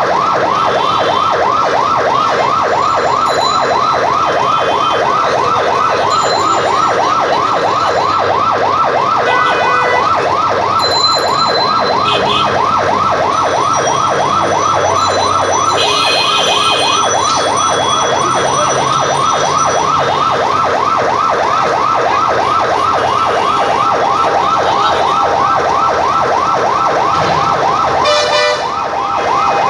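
Fire engine's electronic siren sounding a fast, rapidly repeating yelp without a break, answering a bus fire, over light street noise.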